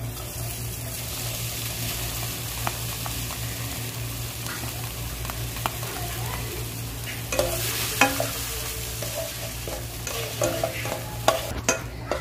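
Water-soaked wheat semolina sizzling as it goes into hot fat in a non-stick frying pan, a steady frying hiss. A slotted spatula scrapes and taps against the pan and the glass bowl, most busily about two-thirds of the way through.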